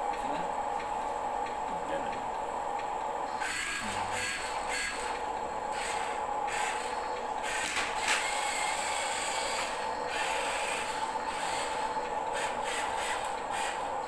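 HUINA 1574 1:14 radio-controlled concrete mixer truck driving and steering on a tabletop: its electric motor and plastic gears whir and grind in spurts from about three seconds in, over a steady hum.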